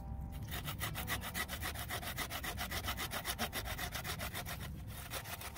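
Wooden-frame bow saw cutting through a branch, its blade rasping in quick, even back-and-forth strokes, with a brief break near the end.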